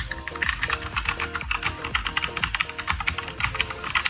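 Fast typing on a DareU EK87 mechanical keyboard with red linear switches: a quick, uneven run of key clacks, over background music.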